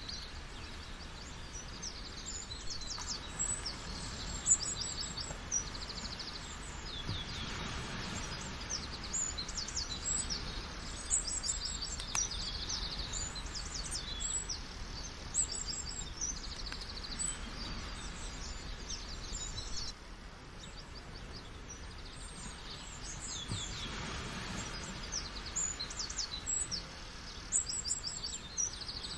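Many small birds chirping and trilling in quick, high calls over a steady background rush of water.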